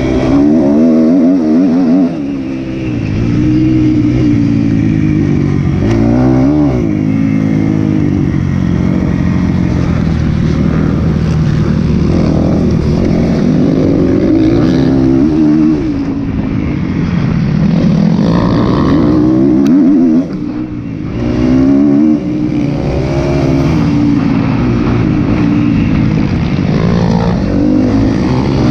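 2012 Kawasaki KX250F's single-cylinder four-stroke engine heard onboard at speed, revving up and down through the gears as it is ridden round a motocross track. The engine note drops away briefly twice about two thirds of the way through.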